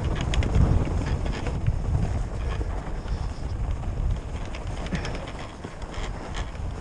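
Wind buffeting the microphone of a helmet-mounted camera during a fatbike descent on a snowy trail: a steady low rumble with scattered short clicks and rattles from the bike.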